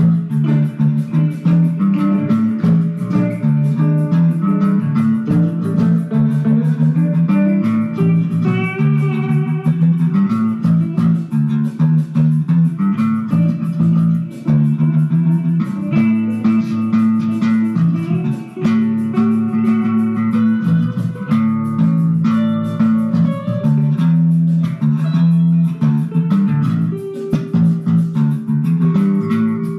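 Instrumental jam on electric guitar and electric bass: the bass plays a repeating line of low notes while the guitar picks higher melodic phrases over it.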